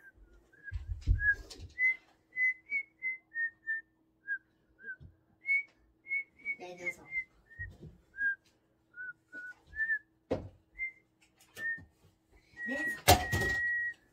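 A person whistling through pursed lips: a run of short notes stepping up and down in pitch, ending on one long held note. A loud bump sounds about thirteen seconds in, during the held note.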